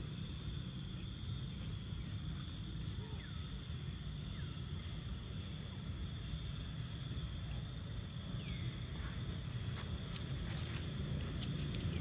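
Insects chirring steadily, some in a fast pulsing rhythm, over a low steady rumble, with a few short falling squeaks scattered through.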